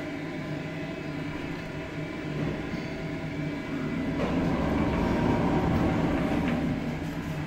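Steady low mechanical hum inside a large hydraulic elevator car as it arrives at a floor and its doors slide open. About four seconds in, a louder, broader noise swells up as the car opens onto the car park.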